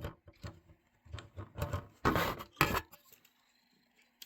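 Handling noise from an alarm keypad being plugged in: a run of small clicks and taps, with a louder scraping rub about two seconds in.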